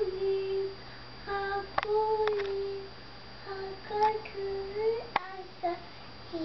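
A toddler singing a Purim song in short phrases of held notes, with short pauses between them. A few sharp clicks fall between the phrases.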